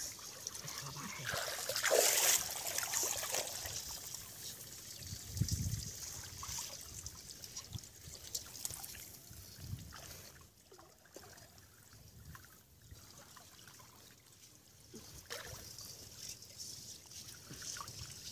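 Water trickling and sloshing as people wade and grope with their hands among the weeds of a shallow canal, loudest about two seconds in.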